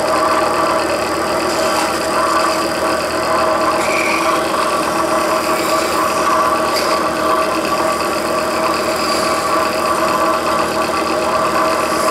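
Restored Atlas (Craftsman) grinder hone running steadily under its electric motor, a constant hum with a steady whine, while a knife blade is held against its spinning oiled stone.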